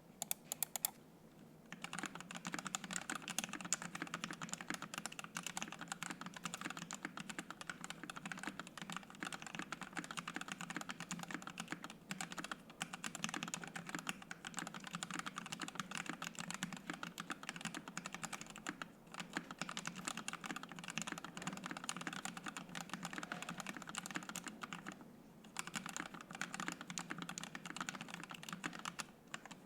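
Typing on a Savage65 65% top-mount mechanical keyboard with an FR-4 plate, PBT keycaps and Ink Black V2 linear switches lubed with Krytox 205g0. A few keystrokes come just under a second in, then steady rapid typing from about two seconds in, broken by a few short pauses.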